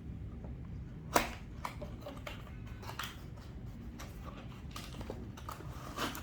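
Small plastic accessories and their packaging being handled: one sharp click about a second in, then scattered lighter clicks and taps.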